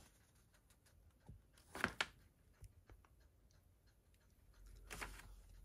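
Faint, sparse handling sounds of a paper poster: a few soft rustles and taps, the loudest pair about two seconds in.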